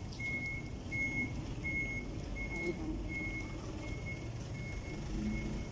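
A vehicle's reversing alarm beeping steadily, about three short beeps every two seconds, over a low engine or traffic rumble.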